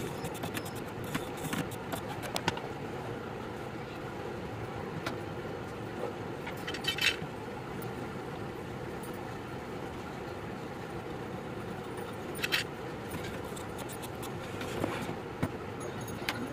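Steady machine hum at a phone repair bench, with scattered light clicks and taps of metal tools on the motherboard while the CPU pads are cleaned with a soldering iron and brush.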